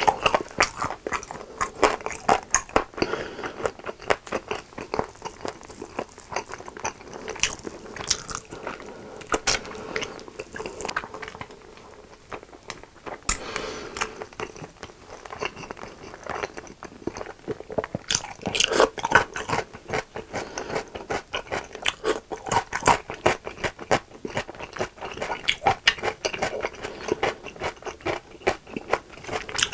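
Close-miked chewing and biting of sauce-glazed grilled chicken: a dense run of small wet clicks and crunches, easing briefly a little before halfway.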